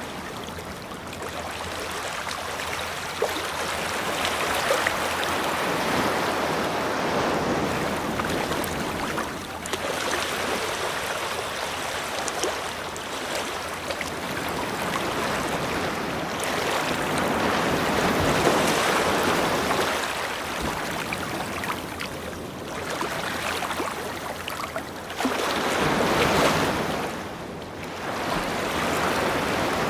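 Ocean waves breaking and washing up a beach, the surf swelling and falling away every few seconds.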